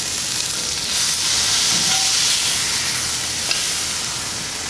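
Burger patty and its fat sizzling in a hot cast iron skillet as the patty is lifted out with a spatula. The sizzle swells about a second in and eases off toward the end.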